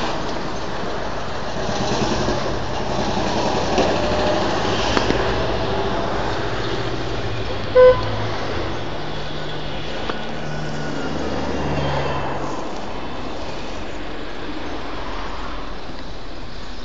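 Street traffic noise with a vehicle rumbling past, and one short car horn beep about eight seconds in.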